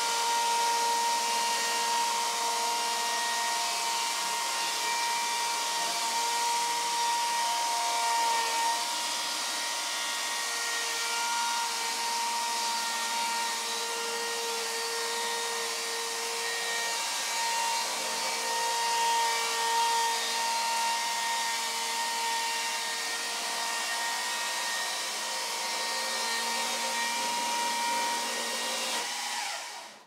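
Electric chainsaw on a chainsaw mill ripping lengthwise through a log, its motor whining steadily under load as the chain cuts. It stops abruptly near the end.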